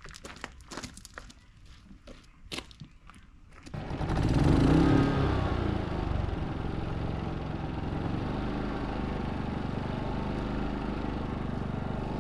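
A few clicks and knocks, then the Westinghouse iGen4500DF inverter generator's single-cylinder engine starts about four seconds in. It runs loud for a second or two, then settles into a steady run: it is running again after stale fuel from storage kept it from starting.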